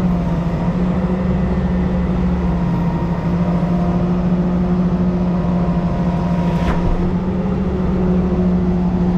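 An engine running steadily at a constant speed, with one sharp click about two-thirds of the way through.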